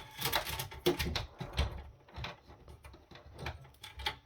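Parts of an electronics unit being handled while it is taken apart: a rapid run of small clicks, knocks and rattles, thinning out to scattered knocks after about two seconds.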